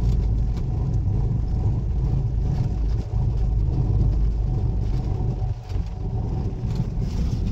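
Steady low rumble of a car driving on a paved road, engine and tyre noise heard from inside the cabin.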